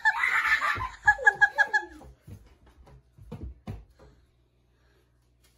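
A young girl laughing in a quick run of giggles for about two seconds, followed by a few soft taps.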